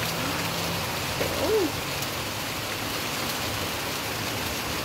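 Rain falling steadily, an even hiss of drops. About a second and a half in there is one brief pitched sound that bends up and down.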